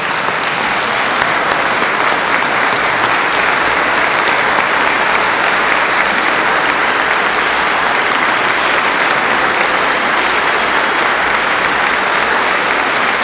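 A large crowd clapping in sustained applause that swells up at the start and then holds steady.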